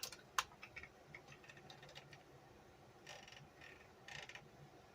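Faint clicks and light scraping of small hard kit parts being handled and fitted, with one sharp click about half a second in and two short scratchy rustles near the end.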